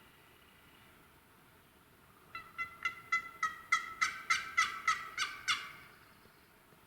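Wild turkey yelping: a run of about eleven short, evenly spaced yelps, about three a second, starting a couple of seconds in and growing louder before stopping.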